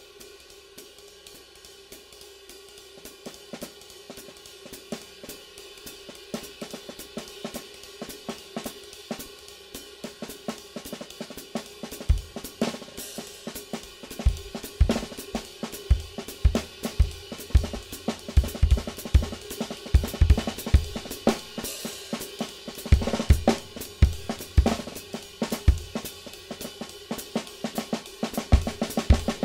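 Drum kit played in a groove, the stick riding a new Sabian HHX Tempest cymbal, a crash-ride, with a steady wash of cymbal ring under quick strokes. Bass drum kicks join about twelve seconds in, and the playing grows louder toward the end.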